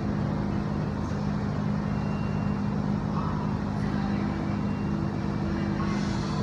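A steady low mechanical hum, with several held tones that do not change.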